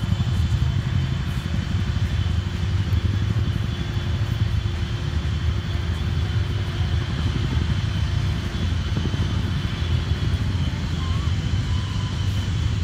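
Jet aircraft engines running on the flight line: a steady low rumble with a thin, steady high whine over it.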